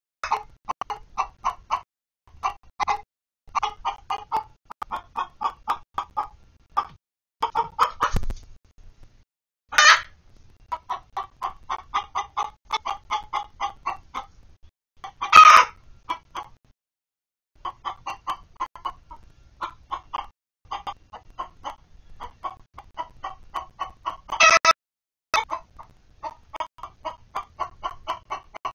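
A flock of backyard laying hens clucking almost without pause, in quick runs of short clucks. Three louder, harsher squawks are spread through, and there is a dull low thump about eight seconds in.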